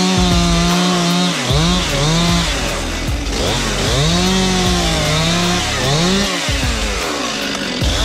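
Chainsaw cutting willow limbs: the engine revs up to full throttle, holds while it cuts, then drops back toward idle, four or five times over.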